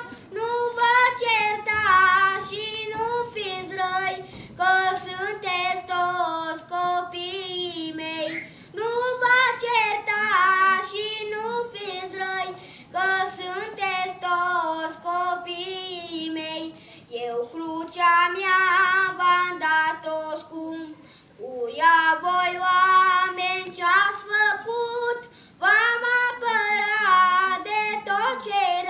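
A boy singing a Romanian song solo and unaccompanied, in long phrases with held notes and short breaths between them.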